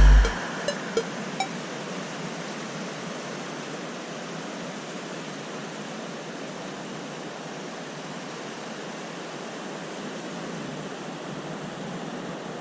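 Steady rush of water, an even noise without distinct wave breaks or other events, as background music cuts off at the very start.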